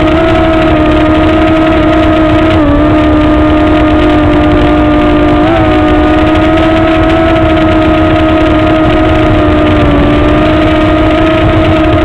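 Parrot MiniDrone quadcopter's four small electric motors and propellers running in flight: a loud, steady hum with overtones. Its pitch dips briefly about two and a half seconds in, blips up near five and a half seconds, and sags slightly near ten seconds as the drone manoeuvres.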